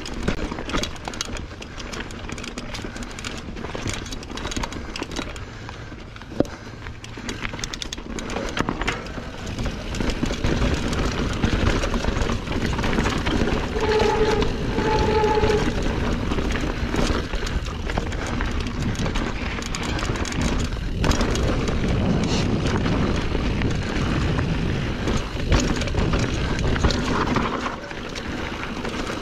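Norco Sight full-suspension mountain bike descending a rocky, dusty singletrack: tyres crunching over loose rocks with constant rattling and clacking from the bike, and rushing wind noise. It grows louder about a third of the way in, and two short squeaks sound near the middle.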